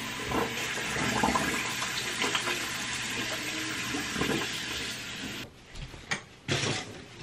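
Toilet flushing: a steady rush of water that stops abruptly about five and a half seconds in, followed by a few light knocks.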